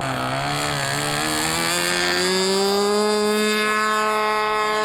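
RC model aeroplane in flight, its motor and propeller droning as the pitch climbs smoothly for about three seconds and then holds steady as the throttle is opened up. The plane is flying with a lean, the left wing down.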